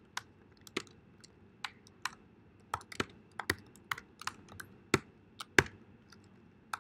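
Typing on a computer keyboard: irregular single keystrokes, a few a second, with the sharpest taps about five seconds in.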